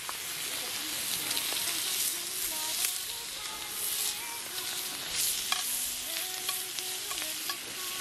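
Pork belly slices sizzling in a skillet over a wood fire: a steady frying hiss with scattered crackles and spits of fat.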